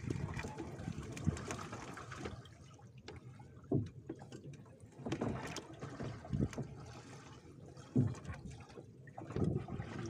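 Water splashing and dripping at the side of a small wooden fishing boat, with irregular dull knocks and splashes every second or two.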